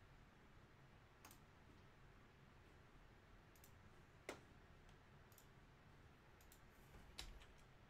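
Near silence with a handful of faint, scattered clicks, the sharpest a little over four seconds in.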